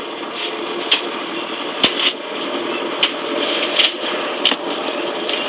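A small engine running steadily, with a few scattered sharp clicks.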